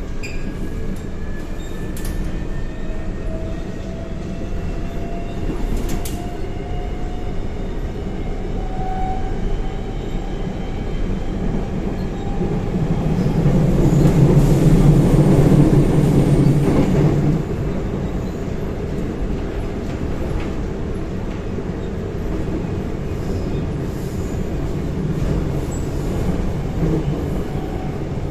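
Subway train running, heard from inside the car: the Daewoo–Alstom GTO VVVF traction inverter whines in several tones that slowly rise in pitch, over steady wheel and running rumble. The rumble grows louder for a few seconds around the middle, then settles.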